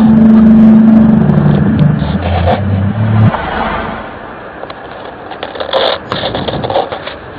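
Unexplained deep droning hum of the kind reported as the 2012 'strange sounds', made of several steady low tones that drop lower about two seconds in and cut off suddenly about three seconds in. After it comes a rushing background noise with scattered clicks.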